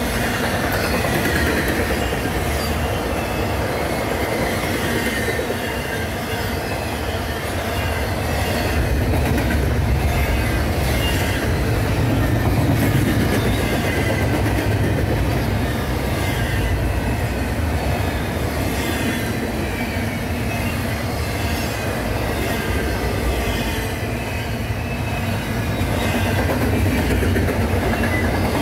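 Double-stack intermodal freight cars rolling past on steel wheels: a steady, continuous rumble and rattle of wheels on rail.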